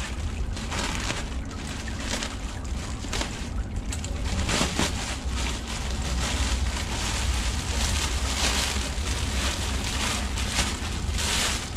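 Plastic packaging crinkling and rustling as a parcel is cut open and an item is pulled out of a clear plastic bag, busiest in the second half. Wind rumbles steadily on the microphone underneath.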